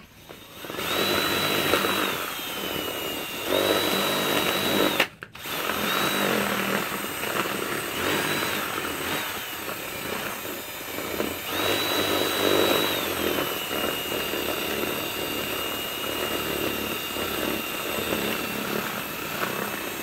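Ryobi cordless drill reaming out the entrance hole of a dried apple gourd, its bit grinding on the hard shell. The motor runs in several bursts, its whine rising to full speed and then sagging lower as the bit bites or the trigger is eased, with a brief stop about five seconds in.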